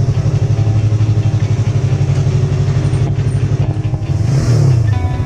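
Small motorcycle engine idling with a fast, steady putter. Its pitch rises briefly near the end.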